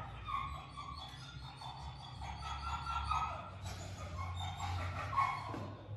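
A 16-week-old puppy whining: short pitched whines about a second in, around the middle and again near the end.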